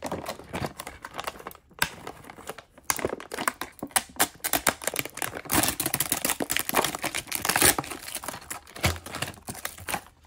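Foil blind bag crinkling as it is pulled from the display case and torn open: a dense run of crackles and small tears, busiest from about halfway through.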